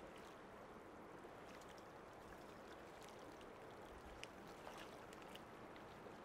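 Faint, steady rush of flowing river water, with a few small clicks and drips scattered through it.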